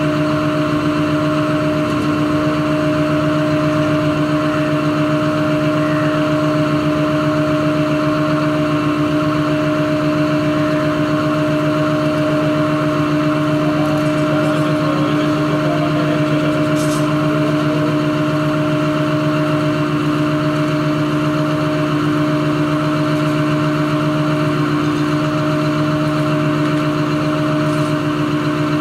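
Caterpillar 330F hydraulic excavator's diesel engine idling steadily at a constant pitch, a low even hum with no revving.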